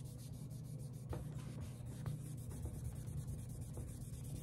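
Cotton pad wet with denatured alcohol rubbing back and forth over a pitted steel axe head, a faint rapid scrubbing, degreasing the steel. A steady low hum runs underneath.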